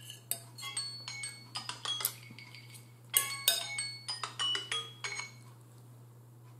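Metal fork clinking and scraping against a bowl: a quick, uneven run of light clicks with short ringing tones, stopping about five seconds in.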